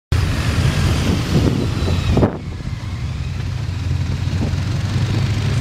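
Motorcycle engine running at a steady cruising speed, heard from the moving bike with wind rushing over the microphone. The wind hiss drops away suddenly a little over two seconds in, leaving the steady engine drone.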